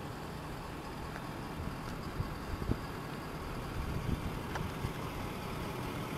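Steady low rumble of motor vehicles, with a few faint clicks.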